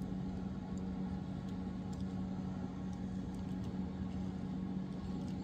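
A steady low hum with a faint rumble under it, unchanging throughout, with a few faint clicks.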